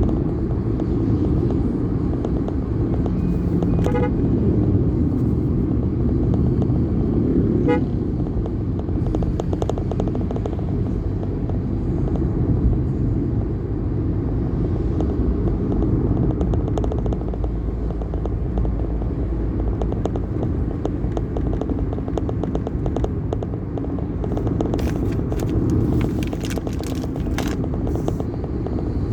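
Road traffic with a steady rumble of engines and tyres, and two short vehicle horn toots, about four and eight seconds in.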